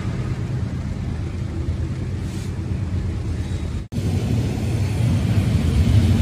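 Ferromex diesel freight locomotive running, heard from its outside walkway. After an abrupt cut about four seconds in, the louder rumble of a loaded double-stack container train rolling past.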